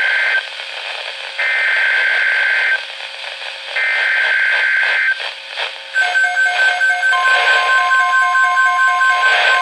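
NOAA Weather Radio Emergency Alert System tones over a radio with static. First come the screeching digital SAME header bursts, each about a second and a half long with about a second of hiss between them. About six seconds in, a pulsing beeping alarm starts, and about a second later the steady 1050 Hz weather radio warning tone joins it.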